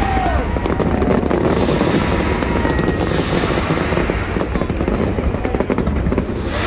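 Fireworks display going off: a dense, unbroken run of rapid crackling and popping over a low rumble of bursts.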